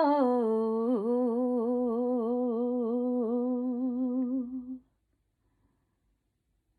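A singer's voice holding a long, wordless note at the close of an unaccompanied improvised song. The note steps down a little in pitch just after the start, then holds with a gentle waver before stopping about five seconds in.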